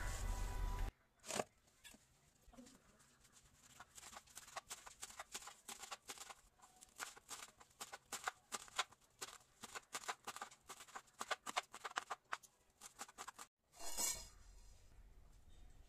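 Kitchen knife chopping fresh fenugreek leaves on a plastic cutting board: quick, uneven knocks, several a second. Near the end there is a single brief, louder noise.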